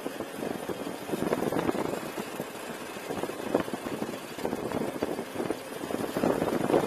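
Razor Ground Force electric go-kart driving over rough, cracked asphalt: a continuous rumble and rattle from the tyres and frame, growing louder near the end.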